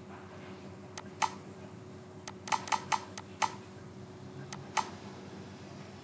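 Computer mouse clicking about ten times: a pair about a second in, a quick run of clicks in the middle, and another pair near the end, over a faint steady hum.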